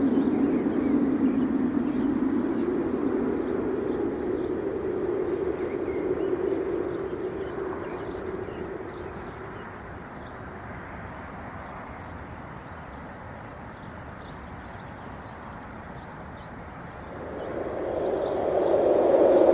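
Wind gusting, a rushing noise that dies away about halfway through and swells again near the end, with faint bird chirps throughout.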